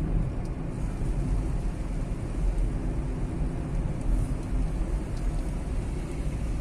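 Steady car noise from inside the cabin while driving: a low engine hum and road rumble from the tyres.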